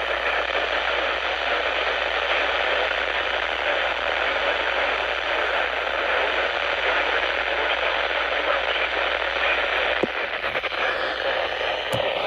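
Steady radio static: an even hiss from a radio receiver with no programme audio, over a faint low hum, with a few small clicks near the end.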